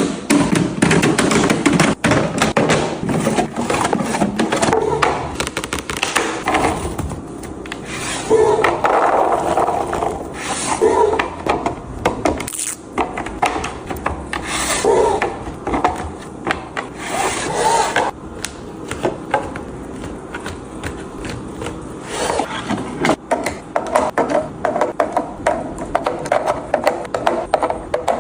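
Hands stocking a fridge with food and containers: continual rubbing, scraping and rustling of packaging with frequent clicks and taps.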